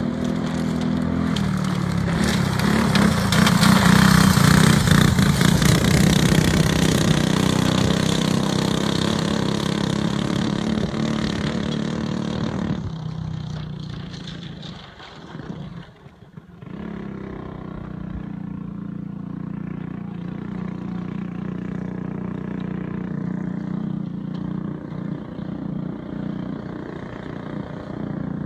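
Go-kart engine running, loudest about four seconds in, then falling away about a dozen seconds in with a brief dip. It runs on steadily and more quietly for the rest.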